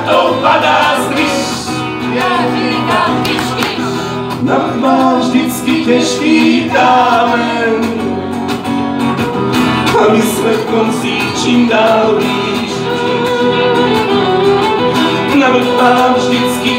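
Live folk song: a strummed acoustic guitar accompanies men singing into microphones.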